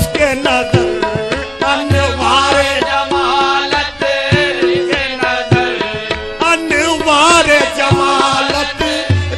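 Qawwali music: tabla drumming a steady rhythm under held harmonium tones, with a singer's voice gliding through ornamented melodic runs.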